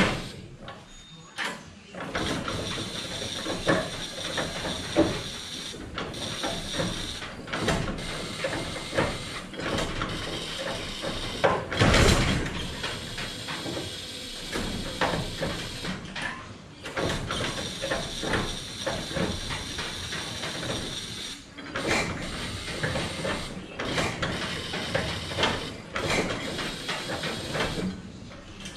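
Irregular metallic clicks, knocks and rattles from hands-on work in the engine bay of a 1927 Ford Model T, over a steady hiss, with one louder burst about twelve seconds in.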